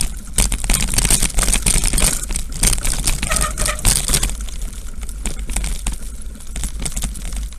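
Wind buffeting a moving action camera's microphone, with a rapid, dense crackle of crunching and rattling from movement over rough ground. It is loudest in the first four seconds and eases after that.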